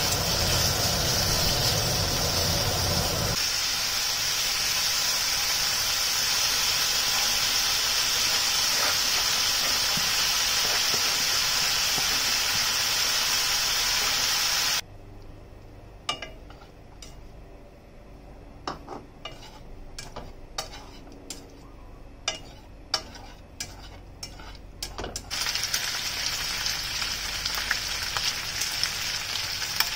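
Pork belly and shrimp sizzling in a frying pan as they are stir-fried with chopsticks. About halfway through the sizzle cuts off suddenly, leaving a quieter stretch of light clicks and taps. Then the sizzling starts again near the end.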